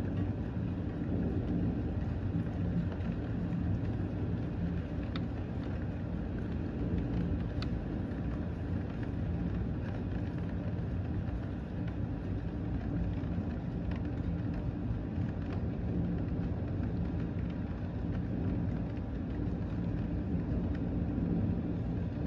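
Steady rain in a thunderstorm over a low continuous rumble, with a couple of faint ticks of drops.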